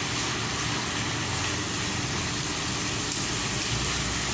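Steady background rumble and hiss, unchanging throughout, like a running motor or traffic.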